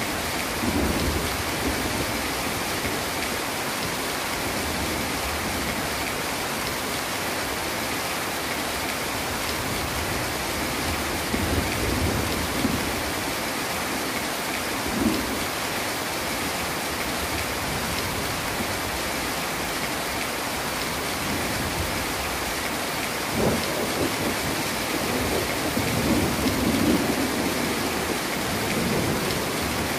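Heavy rain falling steadily, with thunder rolling over it: low rumbles about a second in, again a little before halfway and through the last third, and a short sharper clap around halfway.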